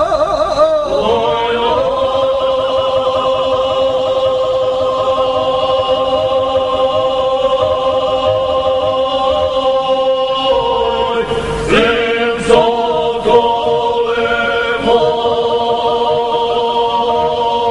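A men's folk group singing unaccompanied in several parts, holding long, steady notes in close harmony. The voices waver at the start, then settle; about twelve seconds in they break off briefly and come back in on a new chord.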